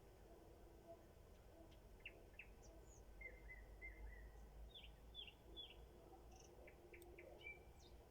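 Nightingale singing faintly: a string of short whistled notes and quick trills, with three rapid down-slurred notes in a row about halfway through.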